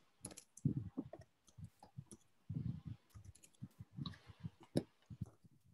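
Irregular clicking of a computer mouse and keyboard picked up close to the microphone, with a few duller knocks among the clicks.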